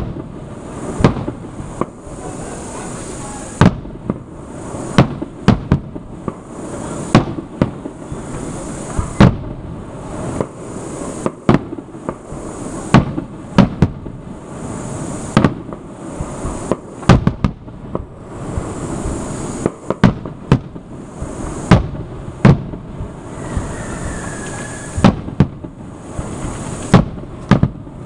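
Aerial fireworks shells bursting overhead in an irregular series of sharp bangs, roughly one a second, some coming in quick pairs, over a continuous crackling background. A brief faint falling whistle comes near the end.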